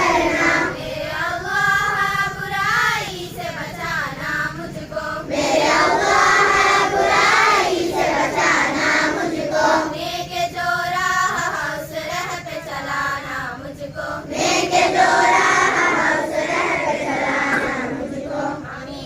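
A group of schoolchildren singing together, in sung phrases with short breaks between them.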